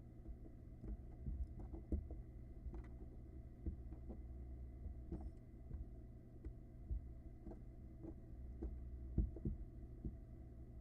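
Irregular soft thumps and scratching knocks of barn owl nestlings shuffling and bumping about on the floor of a nest box, over a steady low hum and a faint high steady tone.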